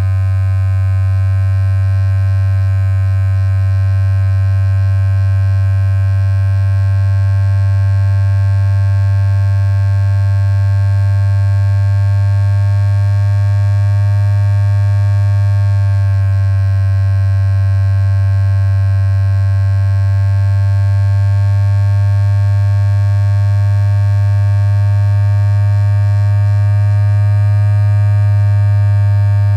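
Electric motor of a handheld massager running at a steady speed: a constant low hum with a buzzy overtone.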